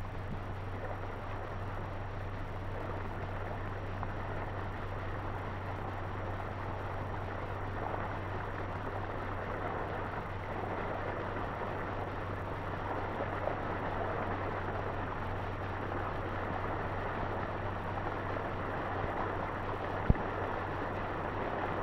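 Steady hiss and low hum of an old optical film soundtrack, with a single sharp click near the end.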